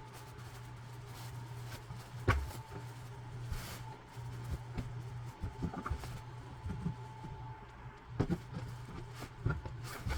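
Fabric rustling and handling as a sewn tote bag is pulled through its opening and turned right side out, with scattered small clicks and one sharp knock about two seconds in. A steady low hum runs underneath.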